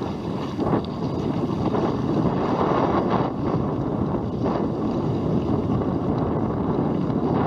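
Wind buffeting the microphone over the steady rush of water, from a small sailing outrigger under way in strong wind.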